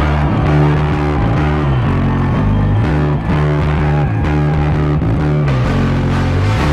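Rock band playing a driving, repeated riff on electric guitar and bass guitar with drums. The low notes pulse in a steady pattern, stepping down in pitch and back a few times.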